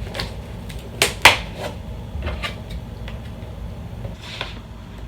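Cardboard box and packaging being opened and handled: a series of sharp knocks and scrapes, the two loudest close together about a second in, over a steady low hum.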